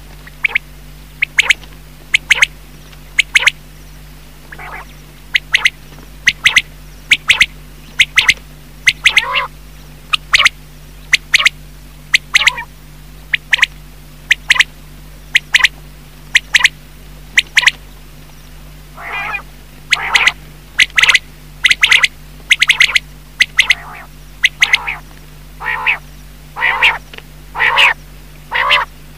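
Quail calling over and over: short, sharp, high notes, often in quick pairs, about once a second. About two-thirds of the way in the calls turn longer, lower and rougher and come closer together, with a faint steady low hum underneath.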